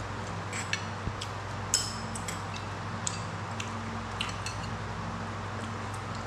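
Chopsticks clicking and tapping against a ceramic plate and bowl while picking up noodles: a dozen or so scattered light clinks, the sharpest a little under two seconds in. A steady low hum runs beneath.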